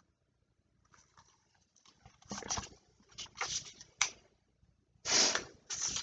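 Paperback picture book being handled close to the microphone: its pages rustle in several short bursts from about two seconds in, with a louder rustle about five seconds in.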